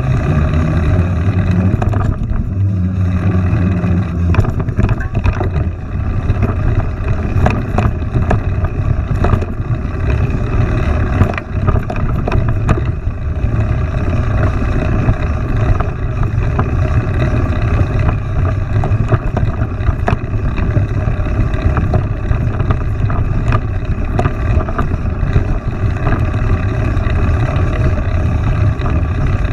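A steady low rumble with frequent small rattles and clicks, as from a mountain bike being ridden over rough trail.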